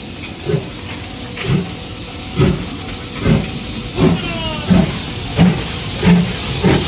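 JNR Class C11 steam tank locomotive (C11 325) pulling out, its exhaust chuffs quickening from about one a second over a steady hiss of steam. A few short falling squeals come in near the middle.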